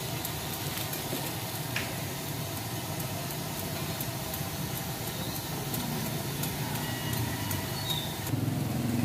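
Steady low hum of a nearby motor vehicle engine with street background noise and a few light clicks. The hum grows louder near the end.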